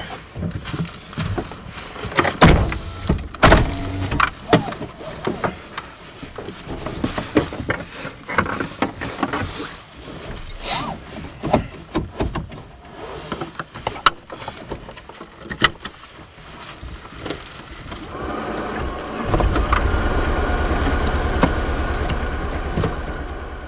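Car occupants settling in, with door thuds, clothing rustle and seatbelts being pulled and buckled. About nineteen seconds in, the car's engine starts and keeps running steadily.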